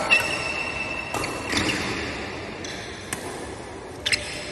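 Badminton rally: rackets striking the shuttlecock with sharp hits about a second apart, with high squeaks on the court in between.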